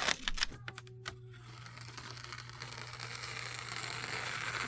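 A few sharp clicks, then a small electric motor running with a steady low hum while a hiss slowly builds louder.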